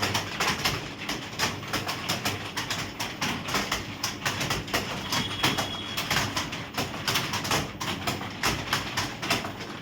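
Computer keyboard keys clicking in quick, uneven succession, several keystrokes a second, as in fast typing.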